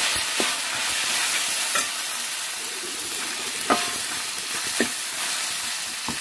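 Onion, tomato and spices sizzling in oil in a stainless steel kadai while a steel ladle stirs them, with a few sharp clinks of the ladle against the pan.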